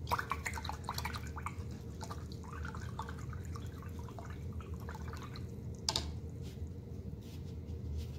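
A paintbrush being rinsed in a jar of water: small splashes and drips, with light taps of the brush against the jar and one sharper knock about six seconds in.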